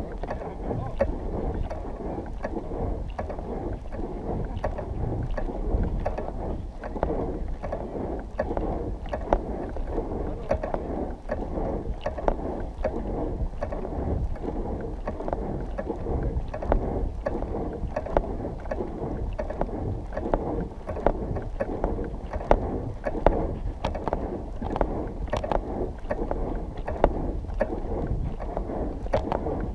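Footsteps of a walker in a simulated spacesuit on dry, bare dirt, about one step a second, over a steady wind rumble on the microphone.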